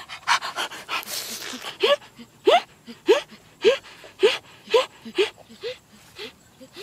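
Wet chewing and smacking noises from eating roast chicken. From about two seconds in comes a run of about ten short, rising vocal yelps, roughly two a second, made while eating.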